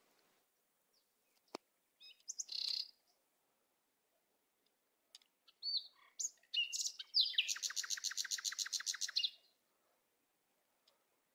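Songbird calling: a few short high chirps, then a fast trill of about ten notes a second lasting about two seconds.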